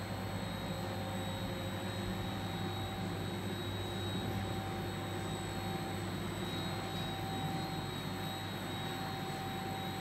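Tablet and capsule inspection machine and its attached dust extraction unit running steadily: a constant low hum with a thin high whine over a blower-like rush of air.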